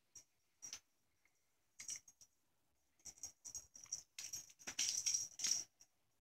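A cat scuffling on bedsheets as it bats and grabs at a rope teaser toy: a few short rustles, then a longer, denser flurry of rustling in the second half.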